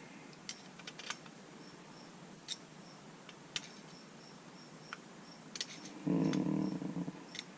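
Scattered light clicks and taps of small tools and carburetor parts being handled on a bench. About six seconds in comes a louder, pitched hum lasting about a second.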